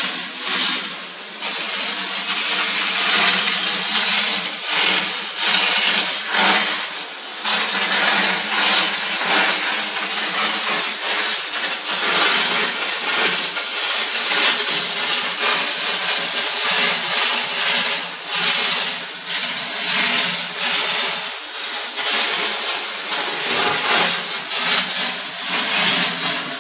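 Kärcher DE 4002 steam cleaner jetting steam from its hand-held nozzle onto bathroom tile grout: a loud, continuous hiss that surges and dips repeatedly as the nozzle works along the joints.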